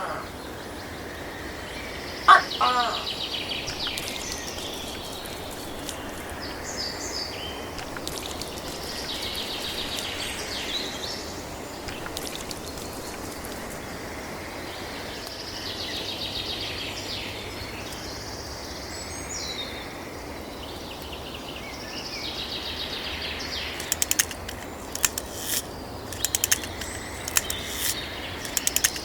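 Farmyard ambience: small birds chirping over and over throughout, with one loud, short, rattling call about two seconds in, and a run of sharp clicks near the end.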